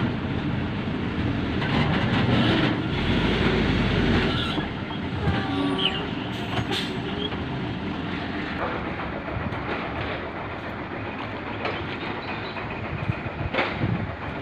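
Heavy vehicle engine and road noise, steady and loud for about the first four seconds, then quieter, with a brief wavering whine about five to six seconds in.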